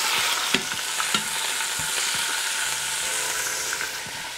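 Chicken thighs sizzling steadily in hot olive oil in an Instant Pot's stainless steel inner pot as they are browned and turned with tongs. The tongs click against the pot twice, about half a second and a second in.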